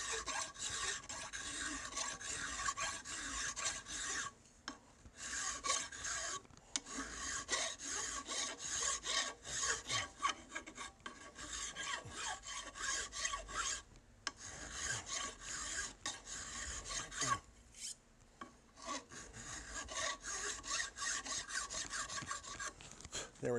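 Flat hand file rasping back and forth across the steel side plate of a Browning 1919 receiver, dressing the rivet heads flush after grinding. A long run of quick rasping strokes, broken by a few short pauses.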